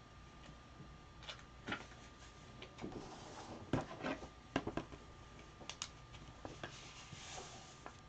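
Trading cards and packs being handled: irregular light clicks and taps with brief rustles, the loudest cluster about four seconds in, over a faint steady high hum.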